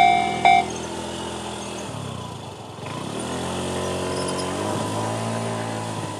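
Electronic railway level-crossing alarm in the JR standard tone, dinging about twice a second, that cuts off about half a second in. Road vehicle engines then run at the crossing, rising in pitch a couple of times.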